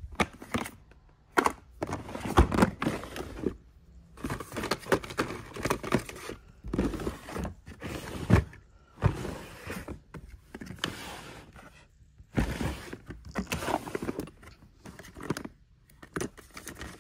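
Hands rummaging through clear plastic storage drawers packed with boxed makeup: small cardboard boxes, plastic tubes and bottles clattering and rustling against each other, in irregular handfuls with short pauses, as the drawers are pulled open.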